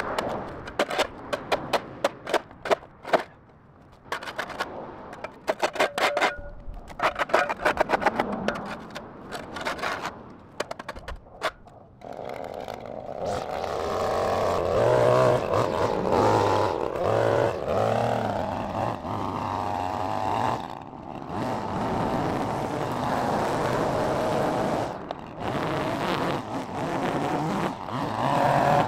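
Flat shovel blade scraping dirt and grass off a concrete sidewalk in quick runs of short strokes. About halfway through, a gas string trimmer comes in and runs steadily with a wavering pitch as it edges the overgrown sidewalk, stopping just before the end.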